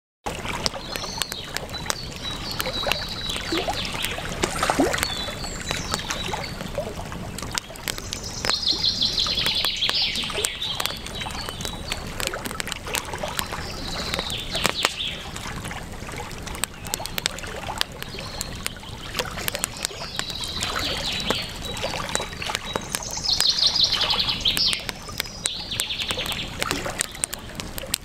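Campfire crackling over a steady flowing river, with birds chirping and singing short trilled phrases every few seconds.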